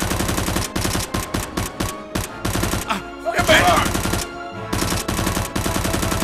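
Rapid bursts of machine-gun fire sound effects, dubbed over a Nerf blaster battle, with background music beneath. The fire pauses about halfway, where a brief voice is heard, then starts again.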